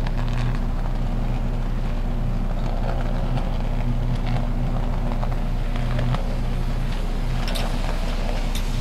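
Sustained high-voltage electrical arc on a substation's high-tension lines: a loud, steady, low buzz with scattered sharp crackles, the sound of an uncleared arcing fault.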